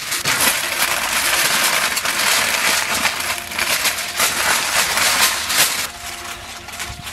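Aluminium foil crinkling and rustling as it is torn off the roll, folded and pressed by hand around a wrapped tray of ribs. It dies down about six seconds in.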